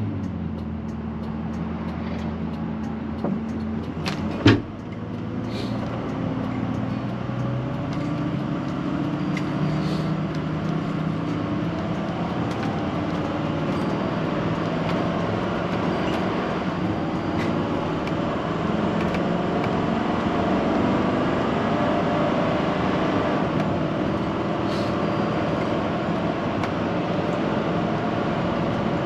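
Motorhome being driven on the road: the engine runs steadily under road noise, its pitch shifting as the speed changes. A single sharp knock about four and a half seconds in is the loudest sound.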